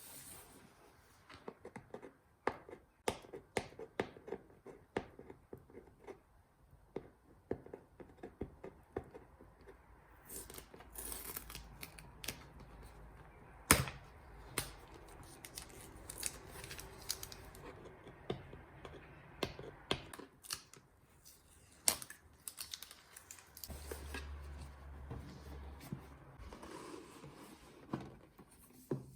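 Headphone box and packaging being handled and opened: irregular taps and clicks with short scraping and tearing rustles of cardboard and paper, and a couple of sharper knocks.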